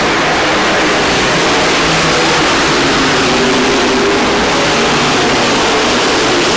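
Several racing pickup-truck engines running hard together, a loud steady noise with engine notes gliding up and down as the trucks pass through the turns.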